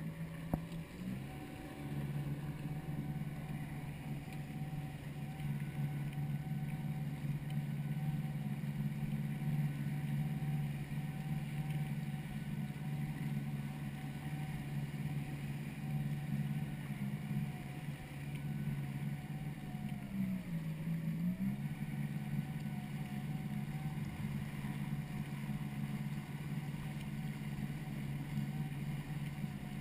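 Personal watercraft (jet ski) engine running steadily at low throttle while cruising. The revs rise slightly about a second in, and about twenty seconds in they dip briefly before picking back up.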